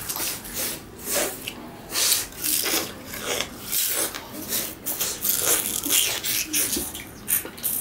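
Raw sugar cane being bitten, torn and chewed with the teeth: irregular crunching and fibrous ripping, one or two bursts a second.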